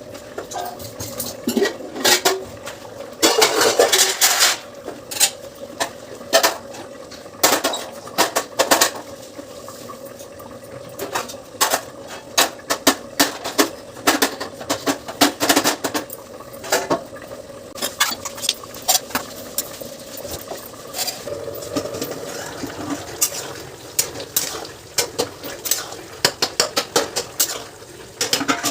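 Metal kitchen utensils clinking, scraping and knocking against cookware in irregular runs, as in stirring and serving, over a faint steady hum.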